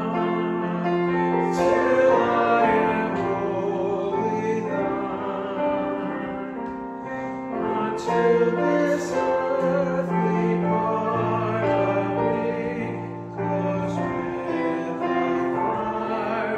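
Congregation singing a hymn to piano accompaniment, a slow melody of long held notes.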